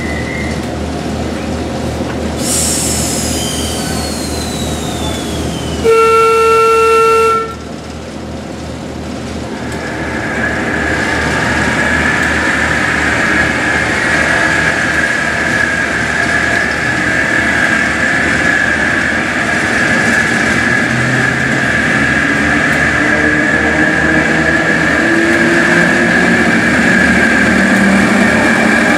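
Diesel locomotive engine running, sounding its horn in one loud blast of about a second and a half some six seconds in. A steady high whine then builds and the engine note climbs in pitch as it powers up.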